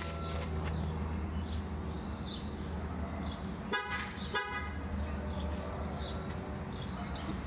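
Two short horn toots about half a second apart, midway through, over a steady low hum.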